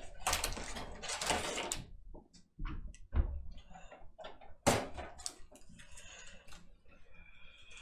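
A trading-card box and its wrapping being handled and opened by hand. Rustling for the first two seconds, two soft thuds, then a sharp click about halfway through, followed by more light rustling.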